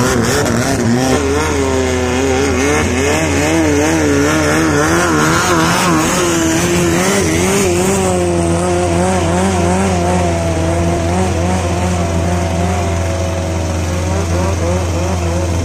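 Longtail boat engines running hard with their loud exhaust note; another longtail passes close at the start, then one engine runs steadily at high revs with its pitch wavering up and down, over the hiss of water rushing past the hull.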